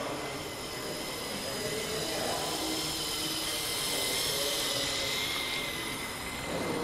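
LEGO train's small electric motor whirring steadily with a high whine as it runs along plastic track, louder around the middle.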